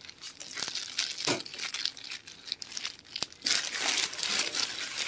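Clear plastic bag around a packaged T-shirt crinkling as it is handled, with irregular crackles that grow louder and denser over the last second and a half.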